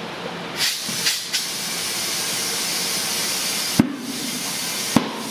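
Compressed air hissing through a tire inflator chuck into a car tire, first in two short spurts, then steadily. Near the end come two sharp pops about a second apart, each with the hiss briefly breaking off.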